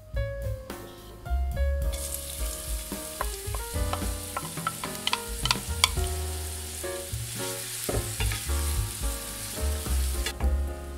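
Chopped onions sizzling in hot olive oil in a nonstick frying pan, the sizzle starting about two seconds in as they go into the pan and stopping abruptly near the end. A wooden spatula stirring them adds a few sharp clicks and taps.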